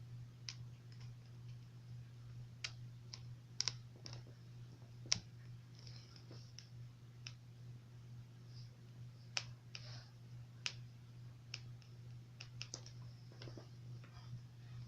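Scattered light clicks and taps of a small screwdriver and plastic laptop parts being handled while a screw is fitted, about a dozen sharp ticks at irregular intervals over a steady low hum.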